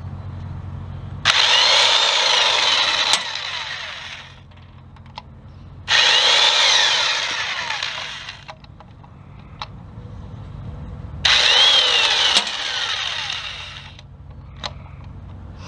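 Chicago Electric corded electric impact wrench running in three bursts of a few seconds each as it spins out the bolts holding the flex plate on a 3.1L V6. Each burst starts suddenly and then trails away, with its pitch bending.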